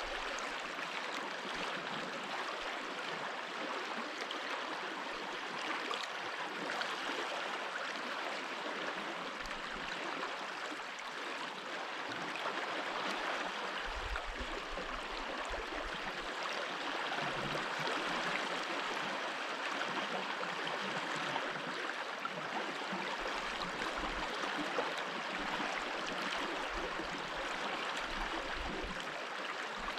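Stream water flowing: a steady sound of running water, with a few brief low rumbles now and then.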